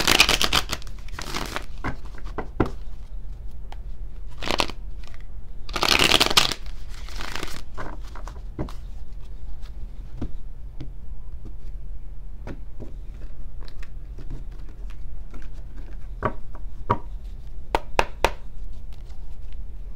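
Tarot cards being shuffled by hand: several short swishing bursts of cards sliding together, the longest and loudest about six to seven and a half seconds in, with scattered light card clicks and taps between them.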